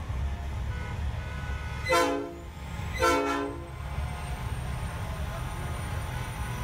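Two short blasts of a truck's air horn, about a second apart, over the steady low rumble of big trucks' engines rolling past.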